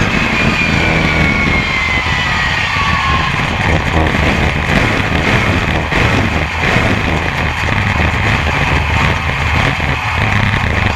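BRISCA F1 stock car engine running hard at racing speed, heard from on board with track and wind noise. A thin high whine falls in pitch over the first three seconds.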